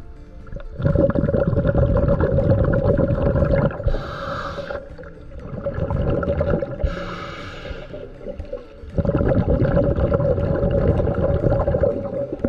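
Scuba diver breathing through a regulator underwater: two long, loud rumbling stretches of exhaled bubbles, with short hissing inhalations between them.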